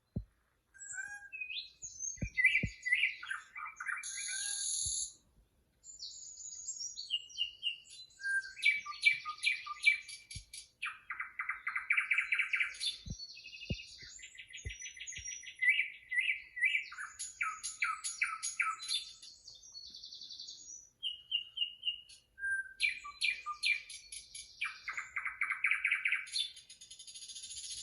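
Recorded birdsong played on a television: many small songbirds chirping, trilling and calling one after another, with short repeated-note trills and varied whistled notes. A steady hiss comes in near the end.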